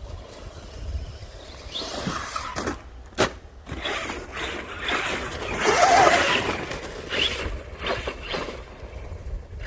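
Arrma Senton 3S BLX RC truck's brushless motor whining up and down in pitch as it is driven hard on frozen snow, loudest around the middle, with a sharp knock about three seconds in.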